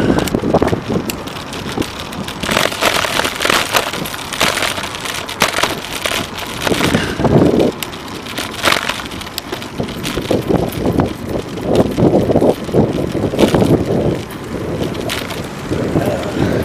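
Wind buffeting the microphone of a moving bicycle's camera, in gusts, mixed with the noise of cars in traffic and irregular crackles and knocks from riding over the road.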